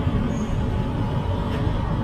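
Steady road traffic at a busy roundabout: cars and motor scooters running and passing, with a heavy low rumble.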